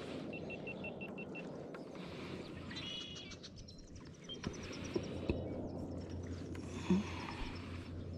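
Quiet open-air ambience on a fishing kayak. Near the start there is a quick run of about seven short, even high beeps. Around the middle come a cluster of high chirping notes and a rapid string of faint high notes, over a low steady hum and a few light knocks.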